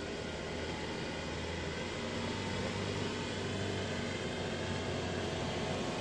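Land Rover off-roader's engine running at low revs as it crawls over a rough forest track, a steady low hum over a hiss, growing slightly louder as it approaches.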